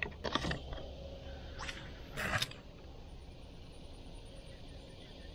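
Casting and handling noises from a light spinning rod and reel: a few short swishes and rustles in the first two and a half seconds, the loudest about two seconds in, then quiet outdoor background with a faint thin high tone.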